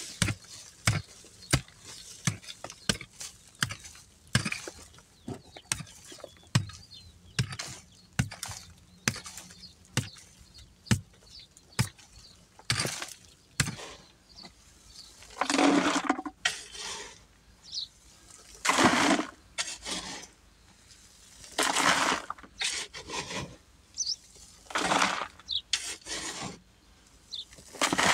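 Wood being cut by hand: a run of sharp chopping knocks, one or two a second, then several longer rough strokes a few seconds apart.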